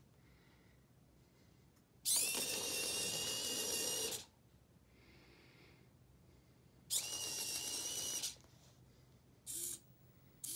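Small electric gear motors of a LEGO Technic robot car whirring in bursts, with a steady high whine: one run of about two seconds, a second of about a second and a half, then two brief whirs near the end.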